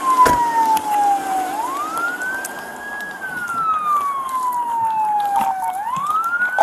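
Police car siren wailing: one tone that climbs slowly, holds, then slides down again, in a cycle of about four seconds. A sharp knock sounds just after the start.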